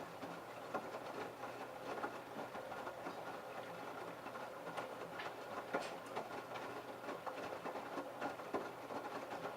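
LG F1222TD direct-drive washing machine drum turning during the prewash, wet laundry tumbling and sloshing with irregular clicks and knocks against the drum.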